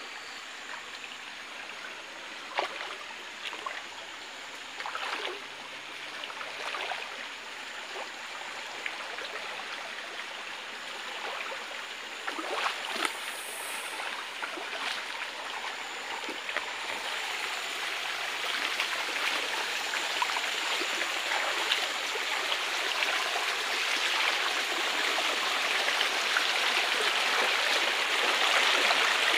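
Shallow forest stream running over rocks, with a few short splashes of wading steps in the water; the rush of water grows steadily louder through the second half.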